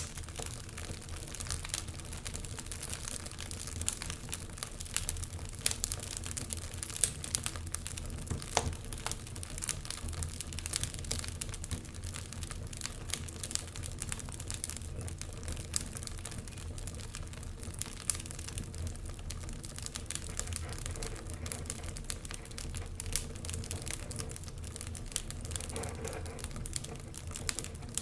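Wood fire crackling in a fireplace: a dense, irregular run of sharp pops and snaps over a steady low rumble.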